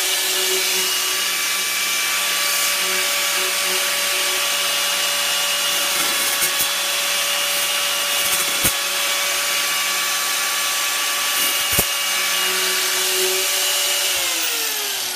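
Hyper Tough angle grinder running at a steady whine while its disc cuts into a thick steel nail claw held in a vise, with a couple of sharp ticks partway through. Near the end the motor is switched off and its whine falls as it spins down.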